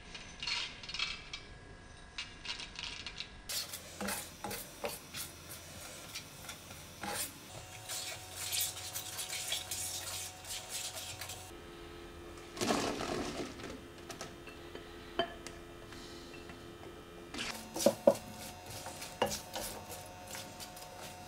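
Seeds tempering in hot oil in a nonstick pan: fenugreek seeds pattering into the oil, then a silicone spoon stirring and scraping the crackling seeds with light knocks against the pan. About halfway through, a short noisy rush as chopped shallots go into the oil, then the spoon stirring the shallots with more knocks.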